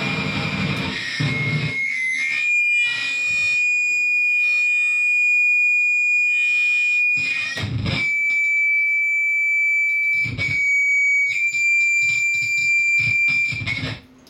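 Electric guitar laid flat before its amplifier, distorted noise that about two seconds in gives way to a single steady high feedback tone held for most of the rest, broken by a few low thumps. The sound cuts off suddenly just before the end.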